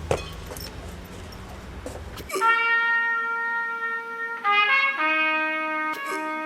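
Trumpet playing slow, long held notes that start about two seconds in, after low room rumble and a few clicks. The notes step down in pitch, and a short break cuts through the lower note near the end.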